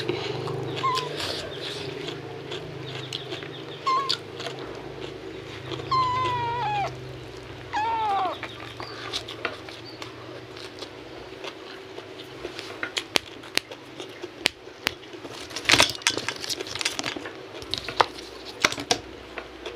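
A cat meows about four times in the first half: two short calls, then two longer ones that fall in pitch. Later, sharp wet clicks of chewing and lip-smacking from eating by hand.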